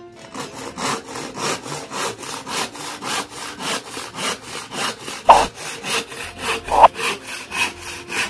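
Freshly sharpened hand saw cutting across a thin wooden batten, with fast, even strokes at about three to four a second. Two strokes a little past halfway are louder and ring briefly.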